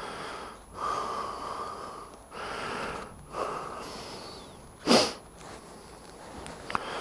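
A person breathing close to the microphone: several breaths about a second or so apart, with a sharp, loud puff about five seconds in.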